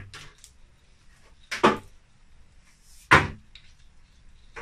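Two sharp knocks about a second and a half apart, with a few fainter clicks between: parts and tools being handled and set down on a wooden workbench.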